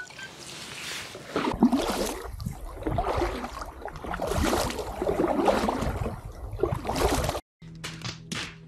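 Paddle strokes in the water as an inflatable packraft is paddled along, a splashing swell every second or two over a low rumble. The sound cuts out for a moment near the end.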